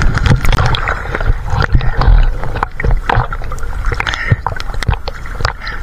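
Seawater sloshing and splashing close to the microphone, with irregular knocks and clicks.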